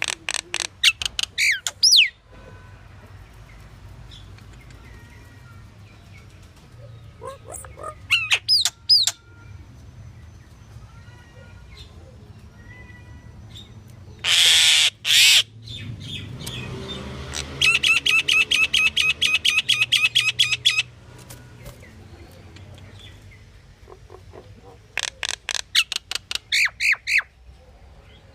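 Pied myna (Asian pied starling) calling in bursts of rapid chattering and whistled notes. About halfway through come two loud harsh squawks, followed by a run of fast repeated notes, about ten a second for some three seconds. A faint low hum runs underneath.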